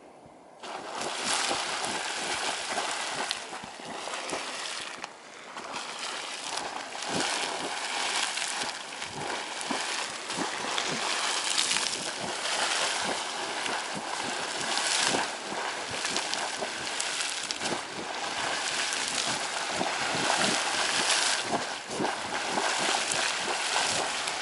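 Geyser in the Sawmill Geyser Complex erupting: a steady rush of spraying, splashing hot water with irregular surges of spatter. It comes in suddenly less than a second in.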